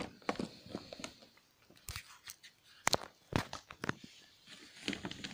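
Clothes and a fabric bag being rummaged through by hand: irregular rustling and crinkling with a few sharp clicks and knocks.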